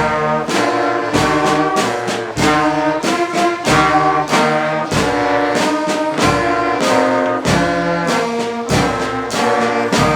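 A school marching band playing: brass instruments, with trombones and trumpets, over regular percussion strikes in a steady beat.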